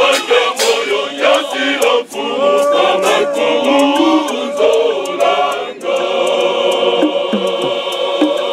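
Men's church choir singing in harmony, with sharp percussive taps over the voices. About six seconds in the singing settles into a long held chord.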